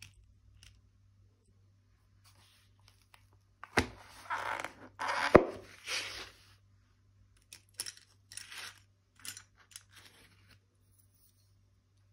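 A hinged pen presentation box being handled and shut: a click, a rustle, and a sharp snap as the lid closes about five seconds in. Lighter clicks and rustles follow as metal ballpoint pens are handled on the table.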